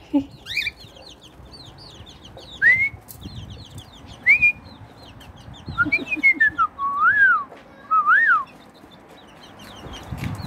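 Cockatiel whistling a series of clear notes that glide up and down, singly at first and then in a quick run of rising and falling notes past the middle. Behind it comes the constant high peeping of many chicks.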